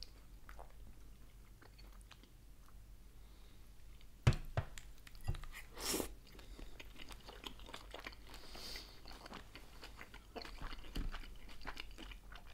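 A person chewing a steamed dumpling close to the microphone, with scattered short mouth clicks; the sharpest come about four and six seconds in.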